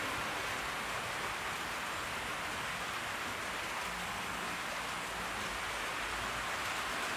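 HO scale model trains running on a layout: a steady rushing noise of wheels rolling on the track and small motors whirring.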